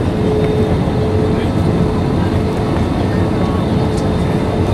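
Airbus A320 cabin noise on approach with flaps extended, heard inside the cabin over the wing: a steady roar of airflow and the IAE V2500 engines with a steady hum running through it.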